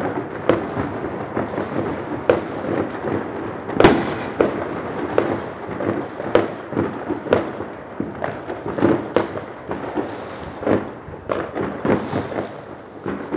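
Fireworks and firecrackers going off all around: a sharp bang about every second over a continuous din of further bursts, the loudest bang about four seconds in.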